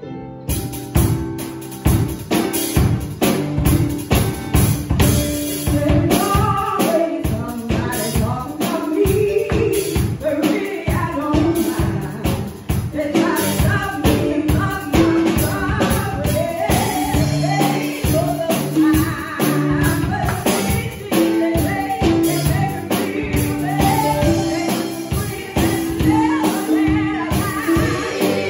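Gospel song with singing over drums and a tambourine keeping a steady, quick beat.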